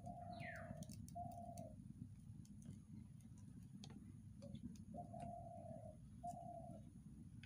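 A dove cooing faintly, two drawn-out coos, then two more about five seconds in, over a low steady rumble. A short rising chirp from another bird comes near the start.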